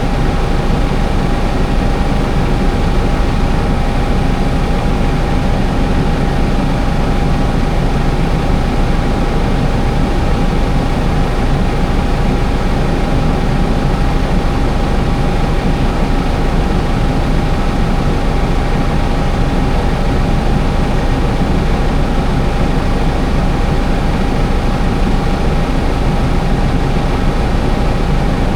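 Case IH Farmall 110C tractor engine running steadily, an even low rumble with a constant high whine over it.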